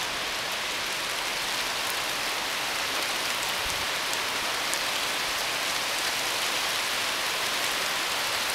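Very heavy, monsoon-like downpour: a steady, even hiss of rain, with a few faint sharp drop ticks.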